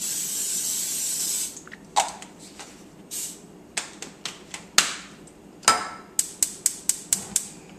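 Aerosol cooking spray hissing into a frying pan for about a second and a half, with another short spray burst a little later and a few clicks and knocks as the can is handled and capped. Near the end a gas stove's burner igniter clicks rapidly, about five clicks a second, as the burner is lit.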